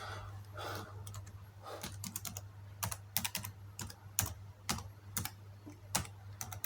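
Typing on a Toshiba Satellite A200 laptop keyboard: separate key clicks at an uneven pace, a few a second, over a steady low hum.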